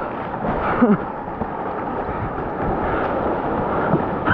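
Steady rushing noise of wind and surf on an action camera's microphone at the water's edge, with a short falling vocal sound about a second in.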